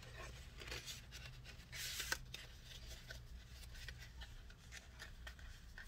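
Paper leaflets and a cardboard box being handled: a brief papery rustle about two seconds in, among scattered light clicks and taps.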